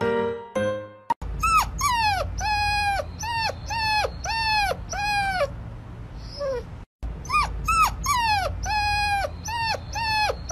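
A young puppy howling in a run of short, high cries, each starting high and dropping in pitch, about two a second; the cries break off briefly and start again. A few piano notes sound at the very start.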